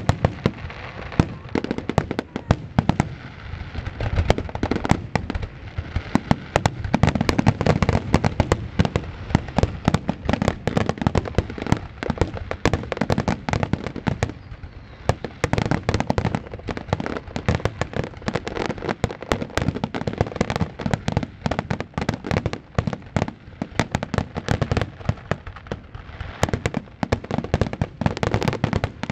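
Aerial fireworks going off in a dense, unbroken barrage of loud bangs and crackles, several a second.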